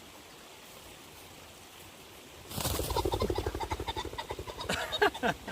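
Common pheasant flushing at close range: a sudden whirr of rapid wingbeats starts about two and a half seconds in and lasts about two seconds, with a few louder sharp strokes near the end.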